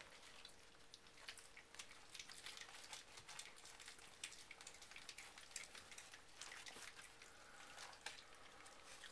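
Near silence: faint, irregular ticks and crackles over a faint steady hum.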